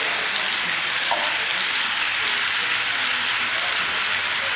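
HO-scale model freight cars rolling past on the track: a steady rushing noise of metal wheels on the rails, with faint quick ticks.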